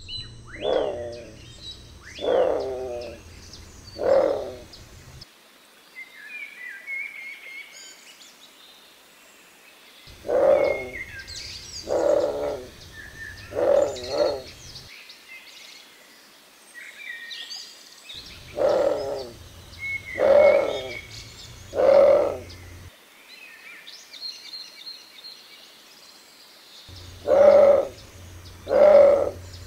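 Bare-throated tiger-heron calling: loud, deep calls in four bouts of two to four, each call about two seconds after the last, with pauses of several seconds between bouts. Small birds chirp faintly in the gaps.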